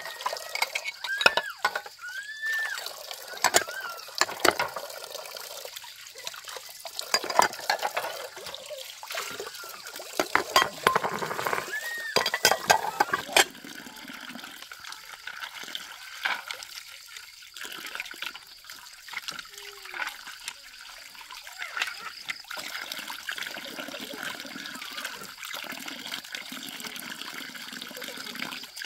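Water running and splashing, with a series of sharp knocks and clatters through the first half, settling into a steady flow of water from about halfway on.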